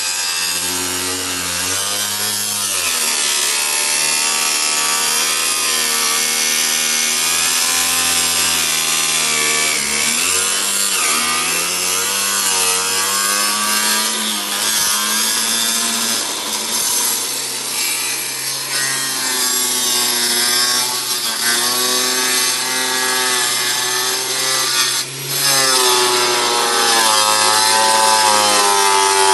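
A power tool cutting through the metal drum of an automatic washing machine, running continuously with a whining pitch that wavers up and down as the load changes, over a steady grating hiss. It dips briefly about 25 seconds in.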